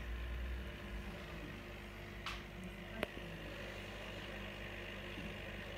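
Desk reef aquarium's pump humming steadily, with water running through the rear filter chamber. A single sharp click comes about three seconds in.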